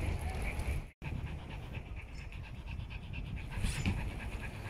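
A small dog panting, over a low rumble of wind on the microphone.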